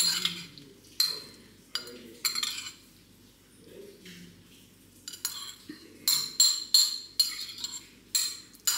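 A metal spoon clinking against a bowl as green olives are stirred in pesto: a few scattered clinks, then a quicker run of them about five to seven seconds in.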